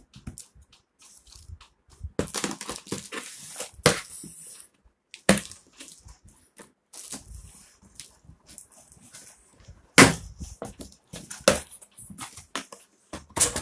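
Cardboard packaging being opened by hand: a knife slitting packing tape along the box seam, then box flaps being pulled open and rustled. It comes as irregular rustles and crackles with a few sharp cracks, the loudest about ten seconds in.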